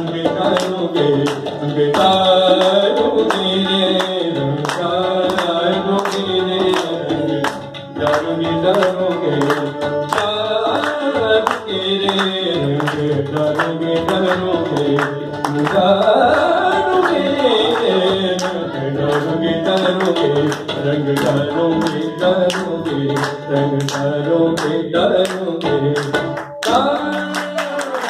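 Live Hindustani-style song with harmonium and tabla: a sung melody over fast, steady tabla strokes, with one sharp stroke near the end.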